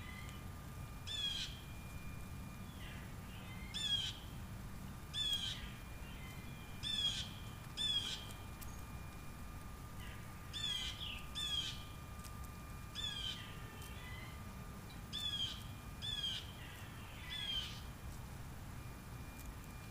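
A bird giving about a dozen short, harsh calls, often in pairs, over a steady low background hum.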